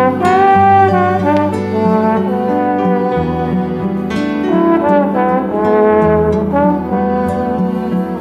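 Slide trombone playing a melody of held and moving notes over a recorded backing track whose low accompaniment notes change about three seconds in.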